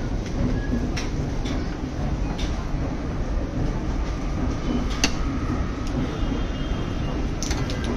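Spoon clinking against stainless-steel bowls and containers several times, the sharpest clink about five seconds in, over a steady low rumble of background noise.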